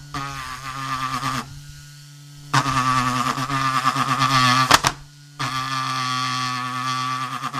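Homemade mini disc sander, a small electric motor in a plastic tube spinning a glued-on sandpaper disc, running with a high whine and scratchy hiss against the edge of a wooden board. The sound comes in three spells, dropping away briefly twice in between.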